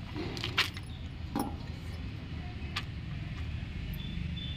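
A few light clinks and taps of small steel utensils, a bowl of oil and a papad-press plate, being handled over a steady low rumble.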